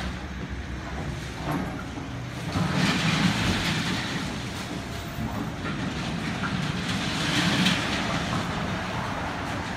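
Demolition noise from an excavator tearing down a building: the machine's engine running under surges of crunching, scraping debris, loudest several times.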